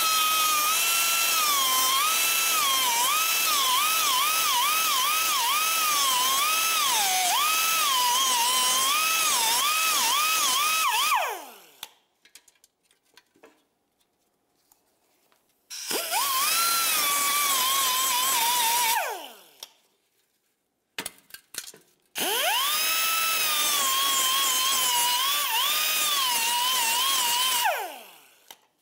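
Small cutoff-wheel tool cutting through rusted heat-shield bolts on a catalytic converter, in three runs, a long one, a short one and a medium one. Its high whine dips in pitch over and over as the wheel bites into the metal and winds down at the end of each run.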